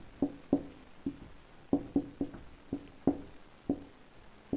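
Marker pen drawing on a whiteboard: a quick series of about a dozen short, slightly squeaky strokes at uneven intervals.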